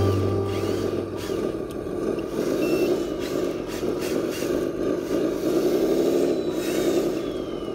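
1/14 scale RC eight-wheel tipper truck running as it pulls forward with the bed raised, its motor note rising and falling twice. Guitar music fades out in the first second.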